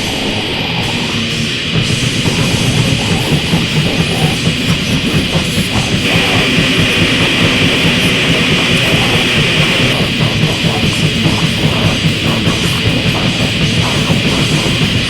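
Death grind / noise grind music: heavily distorted guitars and drums in a dense, harsh wall of sound, with fast, even drum pulses from about two seconds in.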